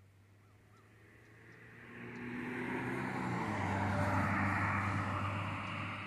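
A motor vehicle passing by, its engine hum and tyre noise growing louder for a few seconds, then starting to fade near the end.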